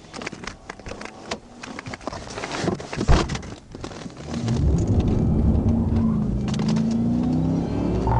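Scattered clicks and knocks with one loud thump about three seconds in, then a car engine speeding up hard and holding a high, slowly rising note from about four and a half seconds in.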